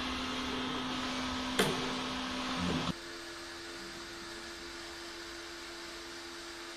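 Small electric motor on a scale RC flatbed tow truck whirring steadily, with a sharp click about one and a half seconds in; it cuts off suddenly near three seconds, leaving a quieter steady hum.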